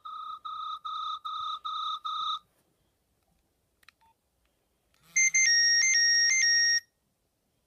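Nokia 7100 Supernova's speaker playing Nokia 3510-style electronic ringtones. A run of even, repeated beeps, about three a second, stops a couple of seconds in. After a pause with a couple of faint clicks, a second, louder ringtone plays a short melody that switches between several pitches and cuts off abruptly.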